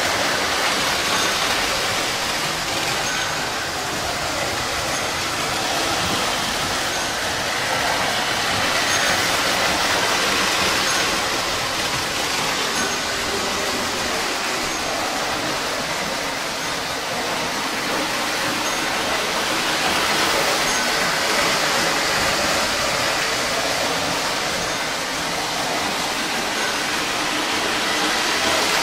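Lionel O-gauge model trains running on three-rail tubular track: a steady metallic rumble of wheels and motors that swells and fades several times as trains pass close by.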